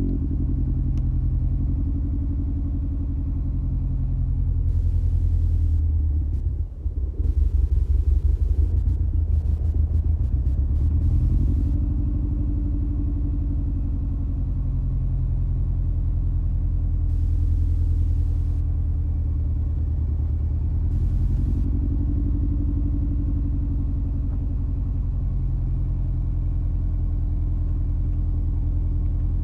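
2003 Mini Cooper S R53's supercharged Tritec four-cylinder running at idle after a cold start with a misfire: it dips briefly about six seconds in and runs unevenly for several seconds before settling to a steadier idle. The owner traced the misfire to a bad tune and a rusty coil terminal.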